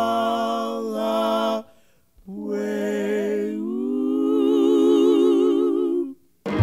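Unaccompanied singing voices holding long notes with a strong vibrato: one note breaks off about a second and a half in, and after a short pause a longer held note runs until about six seconds in. Music starts suddenly right at the end.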